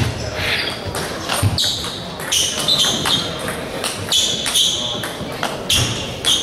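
Table tennis balls ticking on tables and bats: irregular sharp clicks, as balls bounce at this table and neighbouring ones.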